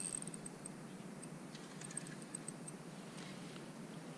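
Spinning reel ticking irregularly while a small hooked fish is played on a bent rod.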